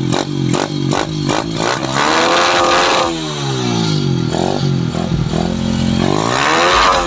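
Motorcycle engine blipped about four times a second for the first two seconds, then revved up and back down twice through a loud open exhaust.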